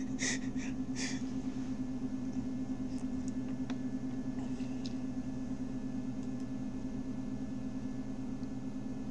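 Steady low hum of several held tones, with two short soft hissing noises in the first second and a few faint clicks later.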